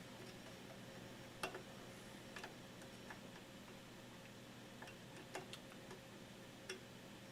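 Faint, scattered small clicks of Fender-style plastic amp knobs being fitted onto the control shafts, about seven over several seconds. A faint steady hum runs underneath.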